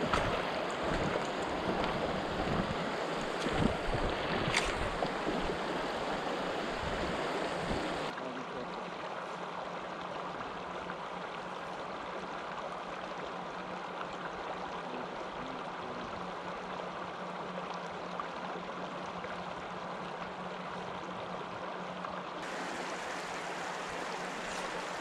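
Shallow river running over cobbles: a steady rush of water, fuller for the first few seconds, then thinner with a faint hum behind it after a change at about 8 s, and changing again near the end.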